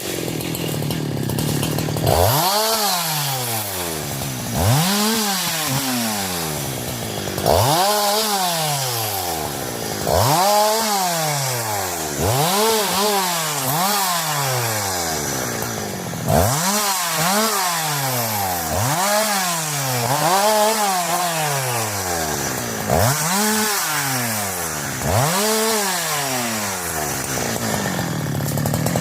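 Husqvarna 372 two-stroke chainsaw cutting wood, the engine revving up and dropping back about every two seconds, a dozen times over.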